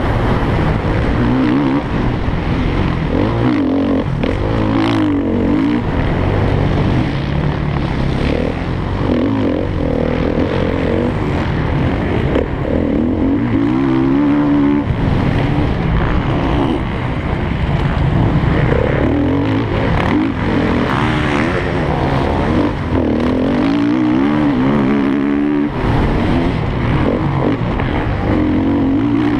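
Motocross bike engine being ridden hard on a dirt track, revving up and down continuously as the rider works the throttle and gears.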